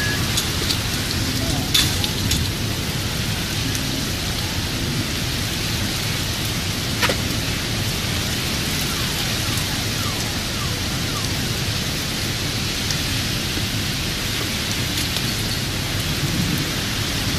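Heavy rain pouring down steadily onto pavement and outdoor furniture, with a couple of sharp knocks about 2 and 7 seconds in.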